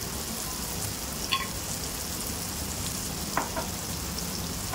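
Beaten eggs sizzling in oil in a pan on top of a masala with green onions, a steady frying hiss with a couple of brief faint ticks.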